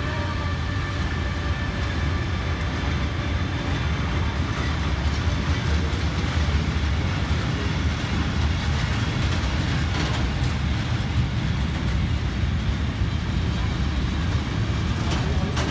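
Covered freight wagons of a heavy freight train rolling slowly past on the rails, a steady low rumble of wheels on track with a couple of faint clicks. A whine from the BR 185 electric locomotive, drawing away at the head of the train, fades out about a second in.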